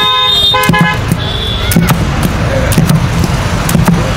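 A vehicle horn honks twice in the first second, a long blast and then a short one. Behind it run repeated thuds and clacks from a wooden paddle beating thick harees (pounded wheat and meat) in a large steel pot.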